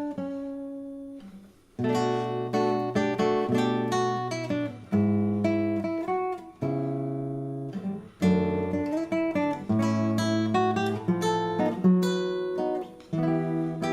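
Acoustic guitar playing a gypsy jazz (jazz manouche) piece: plucked notes and chords ringing and decaying, with a brief break about a second and a half in before the playing picks up again.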